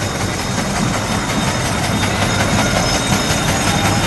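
Engine of a vintage motor bus running at a slow crawl as it passes close by: a steady, low, pulsing rumble.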